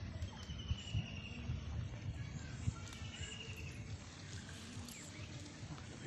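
A short, high, beaded trill from a small animal, repeated three times about three seconds apart, over a low, uneven rumbling noise.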